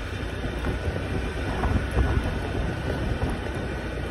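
A Honda scooter riding along at street speed: uneven wind buffeting on the microphone over the steady running of the engine and tyres.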